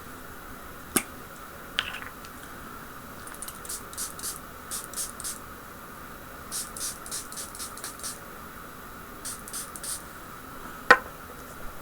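Several quick runs of short hissing sprays from a pump spray bottle of wrap application solution, with a few sharp clicks, the loudest near the end.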